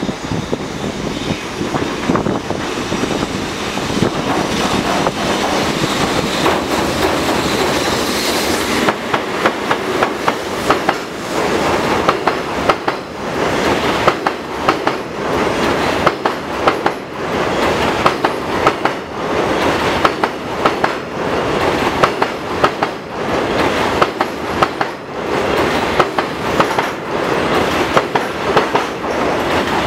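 Freight train hauled by a JNR Class EF81 electric locomotive passing close by on a steel truss bridge, growing louder as it approaches. About nine seconds in the locomotive is past, and a long line of container wagons follows, with a steady rumble and wheels clicking over the rail joints in a steady, repeating rhythm.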